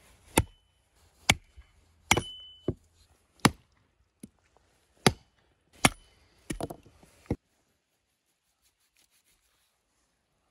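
Hatchet chopping a cow's head on a wooden block: about nine sharp blows at uneven intervals, a couple of them with a brief metallic ring, stopping about seven and a half seconds in.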